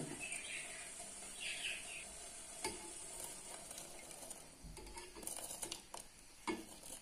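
Faint steady hiss of water coming to the boil in a steel pot. Over it come soft plops and a few light clicks as handfuls of soaked broken wheat are dropped in by hand.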